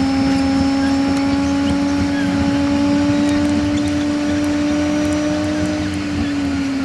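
Car-interior sound of a 1994 Renault Laguna 1.8 8v's four-cylinder engine and road noise, played back five times too fast so that it becomes a steady high drone. The pitch creeps up slowly and dips a little near the end, over a low rumble and faint high chirps.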